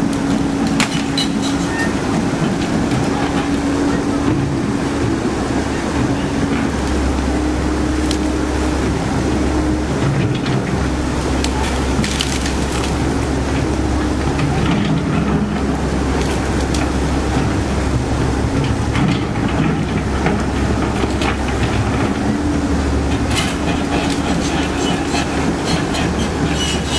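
Komatsu PC130F-7 hydraulic excavator's diesel engine running under load, its tone coming and going as the hydraulics work. Scattered clanks and knocks from the bucket and tracks working through branches and mud, busiest near the end.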